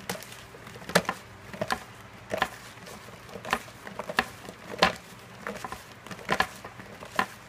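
Hands tossing oiled, seasoned burro banana fries in a plastic bowl: irregular sharp taps and knocks of the fries against the bowl, roughly one or two a second.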